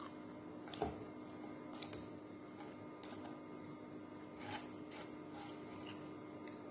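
Crisp fried round scad (galunggong) crackling as it is pulled apart by hand and chewed: a few sharp crunches, the loudest a little under a second in, over a steady low hum.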